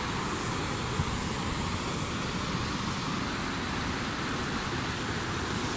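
Steady rushing of shallow water pouring over stones and broken concrete in the breach of a dam, with wind buffeting the microphone.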